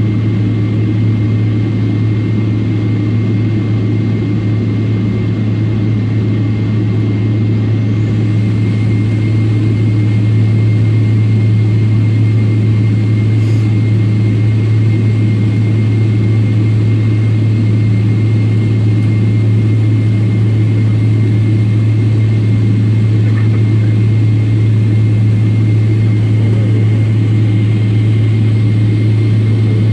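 Boeing 777-300ER's GE90 turbofan engine running steadily, heard from inside the cabin: a deep hum with a thin, high, steady whine over it. It grows a little louder about ten seconds in.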